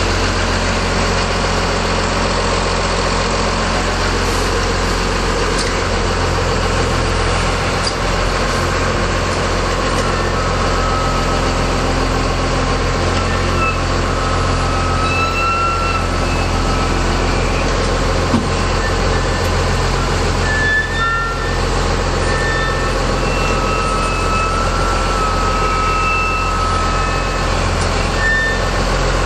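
Cummins 6BT turbo diesel, a 5.9-litre inline six, running steadily, heard from the driver's seat of the flat-nose bus. From about a third of the way in, a thin high whistle comes and goes over it.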